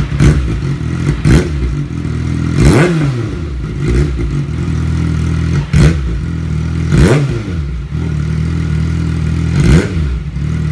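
Kawasaki ZX-6R inline-four engine running with its stock exhaust pipe removed, idling and blipped several times, each rev rising sharply and dropping straight back to idle.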